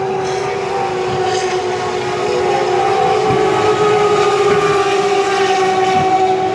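Turismo Carretera race car engine at full throttle, a steady high-pitched drone that grows louder toward the middle and dips slightly in pitch as the car goes by, easing off near the end.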